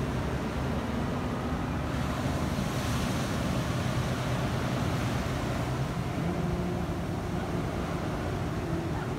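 Ocean surf washing and breaking onto the beach, with wind on the microphone, a brighter surge of wash a few seconds in, and a low steady hum underneath.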